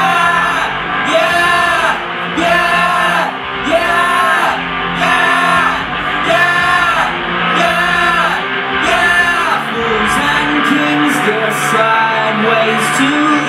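A band playing a rock song: guitars with a voice singing over them, a pitched line rising and falling about once a second.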